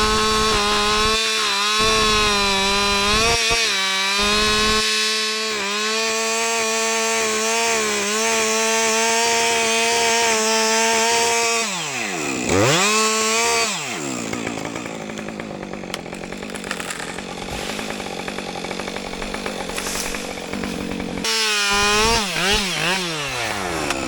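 Two-stroke gas chainsaw running at full throttle, cutting wood. About twelve seconds in, its engine note drops sharply as it bogs down under load and then climbs back. It then runs quieter and rougher, and near the end it revs up again with a few quick dips in pitch.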